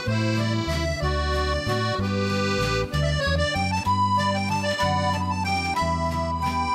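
Background music led by an accordion playing a melody over changing bass notes.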